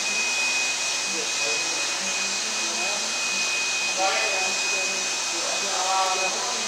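Steady motor-like whir with a constant high-pitched whine running underneath.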